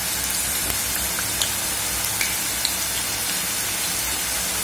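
Dough snacks deep-frying in hot oil, sizzling with a steady hiss and a few small pops.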